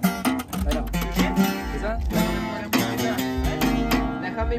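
Two acoustic guitars played together, strummed chords with ringing picked notes, as the instrumental lead-in of a Spanish-language song.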